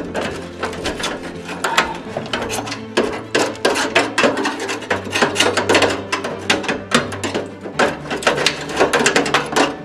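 Rapid, irregular mechanical clicking and rattling, several clicks a second.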